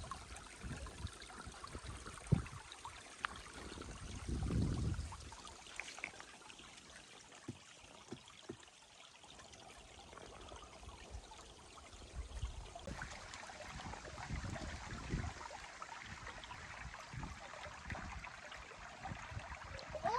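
Shallow creek water trickling and rippling over rocks as a steady hiss, with a few low bumps, the largest about two seconds in and between four and five seconds in.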